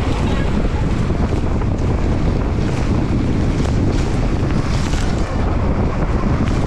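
Heavy wind rush on a helmet-mounted action camera's microphone during a fast mountain-bike descent, mixed with the hiss of tyres ploughing through soft snow.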